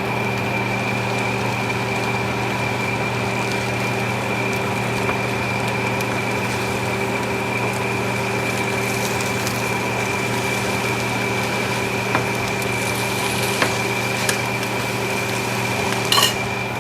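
Chicken frying in a pan on high heat, a steady sizzle with a few crackles, over a constant droning hum with a thin high whine. A short clatter near the end.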